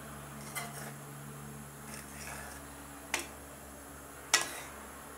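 Steel ladle stirring boiling spinach moong dal in an aluminium kadhai, with sharp clinks of the ladle against the pan about three seconds in and again a second later, the second the loudest. A low steady hum runs underneath.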